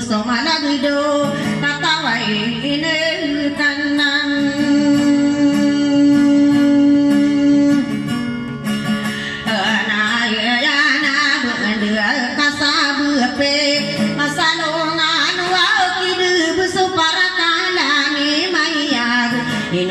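A woman singing to her own strummed acoustic guitar, holding one long note for about four seconds a third of the way in.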